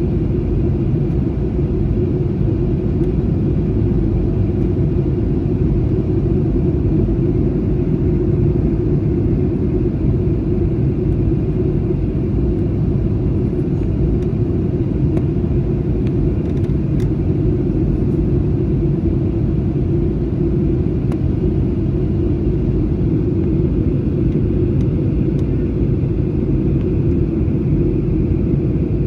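Steady low rumble inside a jet airliner's passenger cabin during descent: airflow and engine noise, even throughout.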